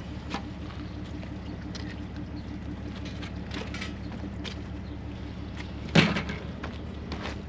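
An engine idling steadily, with scattered light clicks and knocks and one loud clunk about six seconds in.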